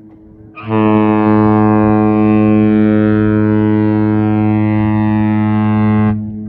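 Cruise ship Allura's horn sounding one long, deep blast of steady pitch, lasting about five and a half seconds, then cutting off abruptly. A fainter tone of the same pitch lingers before and after the blast.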